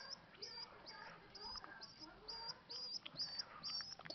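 Short, high-pitched chirps repeating evenly about two and a half times a second, with softer sliding squeaks lower down between them.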